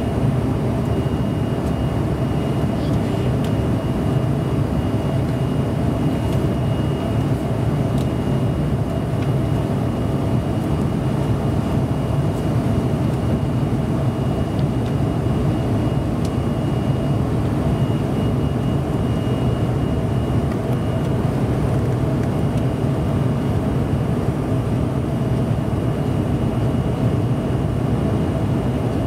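Steady cabin roar of a CRJ700 regional jet climbing out after takeoff: its two rear-mounted turbofan engines and the rushing airflow, heard from inside the cabin. A faint steady high whine runs along over the roar.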